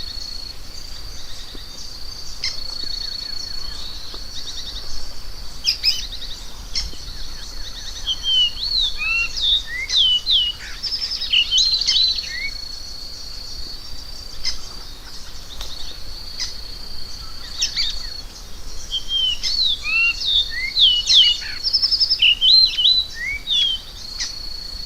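Variable oriole (encontro) singing: clustered, varied whistled notes that slide up and down, in two busy bursts. Behind it runs a steady high-pitched drone that breaks off for a while in the middle.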